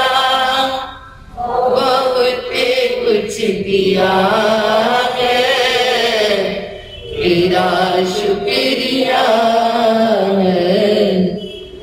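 A woman's solo voice chanting a devotional prayer in long, melodic held phrases, with short pauses for breath about every three seconds.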